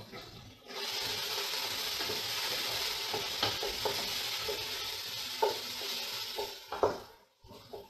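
Diced onions, celery and carrot sizzling in oil in a stainless steel pot as they sweat, stirred with a wooden spoon, with a few knocks of the spoon against the pot. The sizzling starts suddenly under a second in and cuts off near the end.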